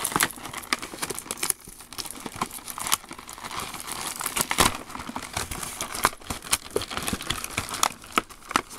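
Clear plastic bags and a cardboard toy box being handled and pulled open, with a steady run of irregular crinkles and sharp crackles.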